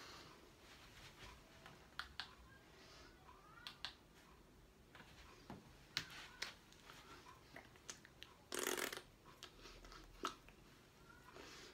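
Near silence with faint scattered clicks and rustles of hands and clothing as someone signs, and one brief louder rustling burst about three-quarters of the way through.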